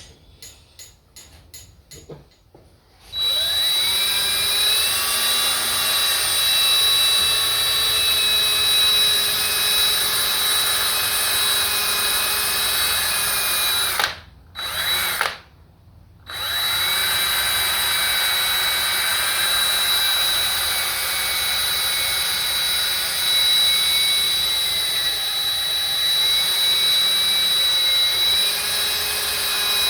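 Small handheld power tool with a buffing attachment, running at speed with a steady high whine as it polishes the guitar's repaired finish. It starts about three seconds in after a few light clicks, cuts out around halfway with one short burst, then starts again.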